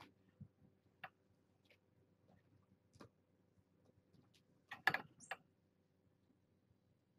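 Faint, scattered sharp clicks of a handheld camera's shutter, a few seconds apart. About five seconds in comes a louder short cluster of knocks and clatter as the camera is handled.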